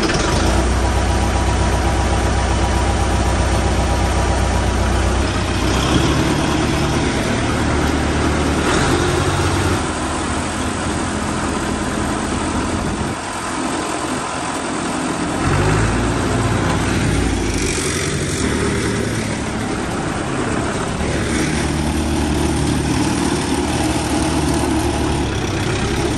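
Massey Ferguson 65 tractor's diesel engine running just after starting, working the rear muck scraper. Its note changes several times as the revs and load shift, dipping about halfway through and picking up again.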